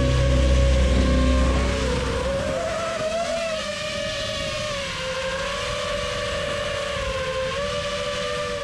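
A home-built FPV quadcopter's brushless motors and propellers whine steadily, heard through the onboard camera, with the pitch wavering slightly as the throttle changes while the drone flies low over the field.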